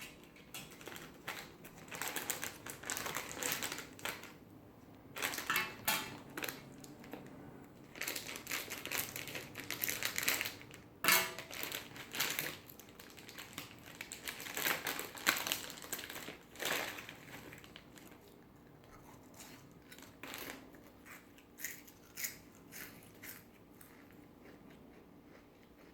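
A plastic potato chip bag crinkling and chips crunching as they are eaten, in irregular bursts of crackle that thin out to scattered small crackles in the last third.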